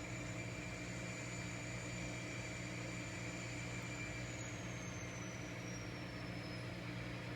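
Small electric motor of an N scale model locomotive running slowly, a steady low hum with a faint high whine that slides down in pitch about halfway through.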